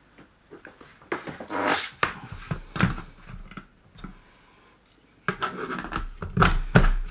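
Handling noises: scattered knocks, clicks and a short scraping rustle, a quiet spell a little past the middle, then a busier, louder clatter near the end as objects are moved and set down.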